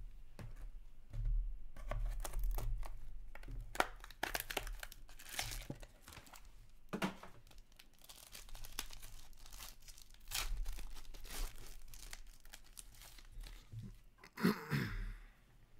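Foil wrapper of an Upper Deck SP Game Used hockey card pack being torn open and crinkled in the hands, in irregular crackly bursts over a low steady hum. A brief falling sound stands out near the end.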